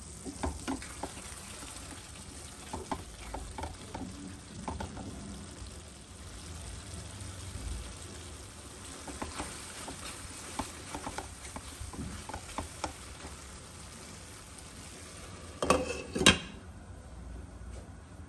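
Gongura mutton curry sizzling in a pan while a wooden spatula stirs it, with scattered scrapes and knocks. Near the end two loud clanks as the glass lid goes on, after which the sizzle is muffled.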